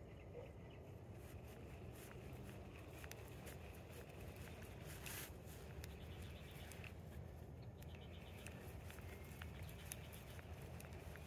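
Quiet marsh ambience with faint, repeated high-pitched animal calls, mostly in the second half, a few light clicks, and a short rush of noise about five seconds in.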